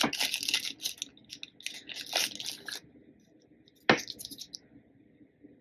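Small plastic zip-lock bag of nail tips crinkling as fingers work it open, followed by one sharp click about four seconds in.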